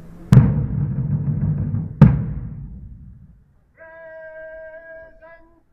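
Two loud strikes on a large drum, about a second and a half apart, each ringing out low for over a second. A long held note starts near the end.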